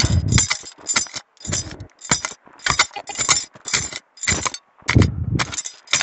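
A hand digging tool stabbing and scraping into stony forest soil in quick repeated strokes, about two a second, with an occasional dull thud, as a metal detector target is dug out from about two inches down.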